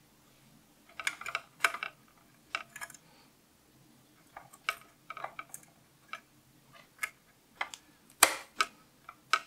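Coin-cell battery being fitted into its holder on a NAS motherboard by hand: a series of small, irregular clicks and taps, the loudest about eight seconds in.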